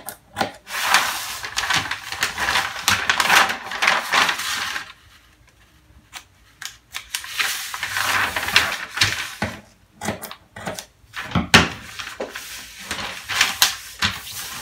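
A large sheet of kraft paper rustling and crackling as it is handled, unfolded and pressed flat, in uneven bursts with a short pause about five seconds in.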